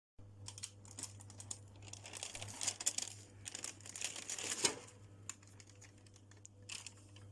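Irregular crinkling and crackling with scattered light clicks, densest in the middle, over a steady low electrical hum.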